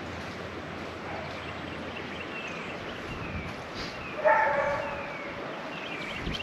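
A dog barks once, sharply, about four seconds in, among faint, high, falling whimper-like squeaks.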